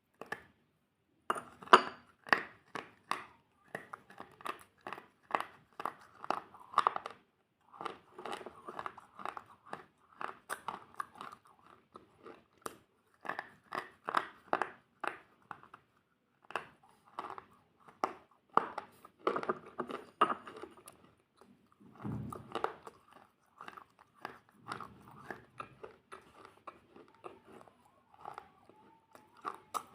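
Close-miked crunchy food being bitten and chewed: a dense, irregular run of sharp crunches, with a short dull thump about two-thirds of the way through.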